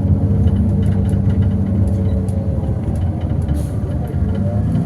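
Bus engine running steadily with a low, even hum, heard from inside the passenger cabin.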